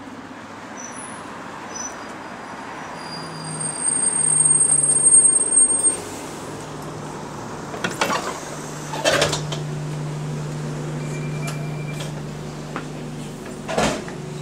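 An Alexander Dennis Enviro200 single-deck bus pulls into the stop with a high brake squeal. A few seconds later there are sharp knocks as the doors open and passengers board, while the bus idles with a steady low hum from its engine and air compressor.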